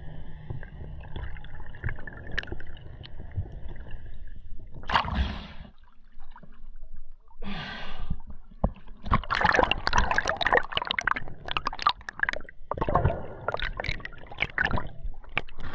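Water sloshing, gurgling and splashing around the camera at the water's surface, in irregular bursts that grow busier after about nine seconds. A steady low hum with faint high tones runs through the first few seconds.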